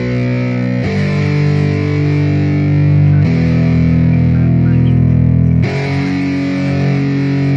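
Instrumental music: a distorted electric guitar holding sustained chords that change about every two and a half seconds.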